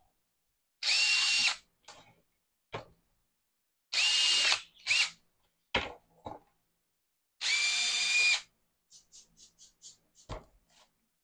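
Power drill run in short bursts of about a second, each spinning up to a steady high whine, as a hole is drilled and widened with a larger bit. Near the end come a few faint clicks and a single knock.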